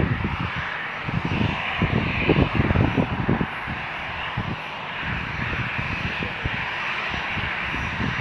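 Steady roar of an airliner's engines, with irregular low gusts of wind buffeting the microphone, heaviest in the first few seconds.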